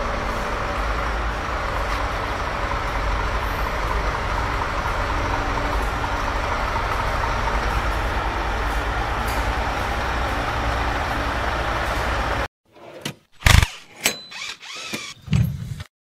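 A heavy truck's engine running steadily with a deep rumble. About twelve seconds in it cuts off abruptly, followed by a few short, loud, sharp sounds.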